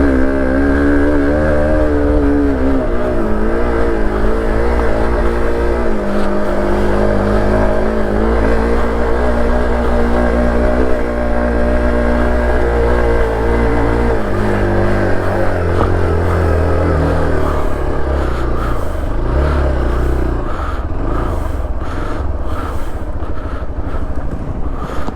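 Hero XPulse 200 4V single-cylinder motorcycle engine pulling away and riding, its pitch rising and falling as the speed changes. Toward the end the running sound gets rougher, with short knocks and rattles.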